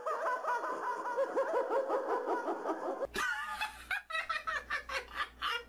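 A woman cackling, a quick run of pitched 'ha-ha-ha' bursts, for about three seconds. It cuts off suddenly, and a man laughs hard in short breathy gasps over a low steady hum.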